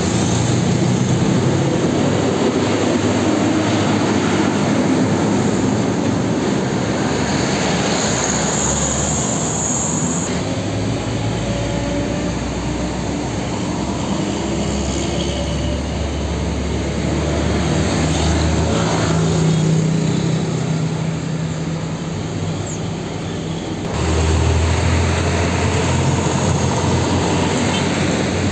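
Heavy diesel trucks driving past in town traffic: a low engine drone over tyre and road noise. The sound changes abruptly about ten seconds in and again near the end as one truck gives way to the next.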